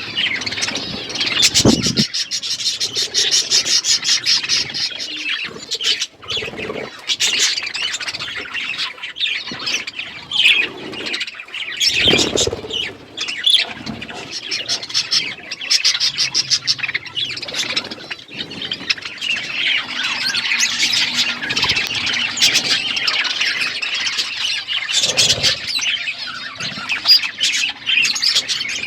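A flock of budgerigars chattering and chirping without a break, dense rapid warbling and squawks, with a few short knocks or flutters mixed in.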